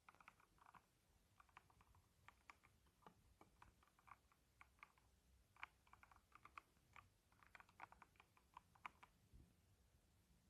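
Faint, irregular typing on a K68BT mechanical keyboard with red linear switches: many light keystrokes in quick, uneven runs.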